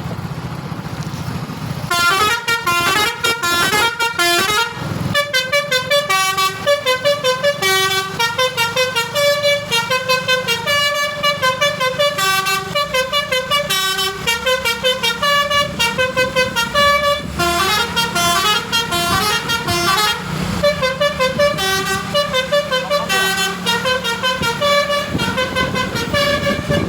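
Telolet basuri musical bus horn playing a quick tune of short notes that step up and down, starting about two seconds in. The bus engine runs underneath.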